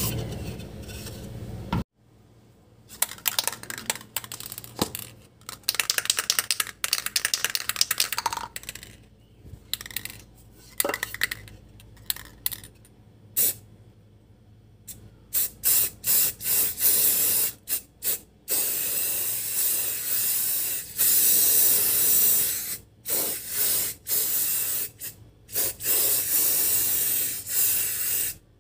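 Aerosol enamel spray-paint can spraying: a hissing jet in short bursts from about halfway, then longer blasts with brief pauses near the end. Before the spraying, scattered clicks and knocks.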